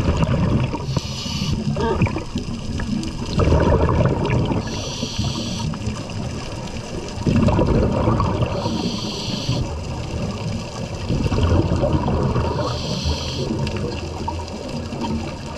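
Scuba diver breathing through a regulator underwater: a gurgling rush of exhaled bubbles followed by the short hiss of an inhale, repeating about every four seconds, four times.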